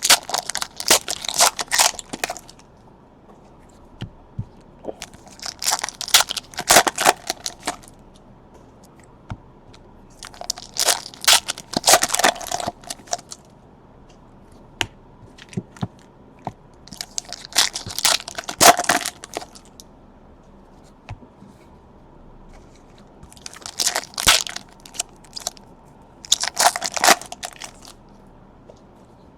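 Trading-card pack wrappers being torn open and crinkled, in crackling bursts of a second or two about every five or six seconds.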